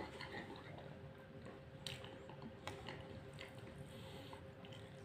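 Faint chewing and fingers squishing through biryani rice, with a couple of soft clicks over a steady low hum.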